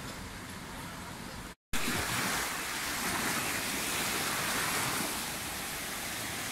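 A faint steady background hiss, broken by a moment of silence about a second and a half in, then the rushing of sea surf as small waves break and wash in.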